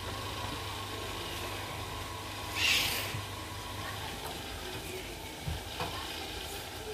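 Electrical insulating tape pulled off its roll in one short, noisy rip about two and a half seconds in, as a bare wire end is taped up. A few small handling clicks follow near the end.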